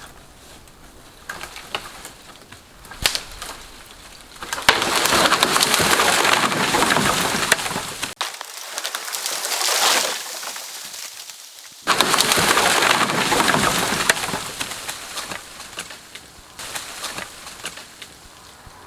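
Tall dead tree breaking loose and crashing down through the branches of the tree it was hung up on: scattered sharp snaps of wood, then two long stretches of loud crackling and splintering as branches break and brush is swept along.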